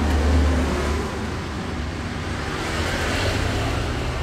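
Steady low rumble of road traffic going by, loudest about the first second, with a swell of higher hiss about three seconds in.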